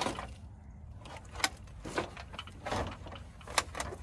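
Scattered clicks and light knocks of the rear-projection TV's front screen panel and screws being worked loose by hand, a few sharp ticks spaced irregularly about half a second to a second apart.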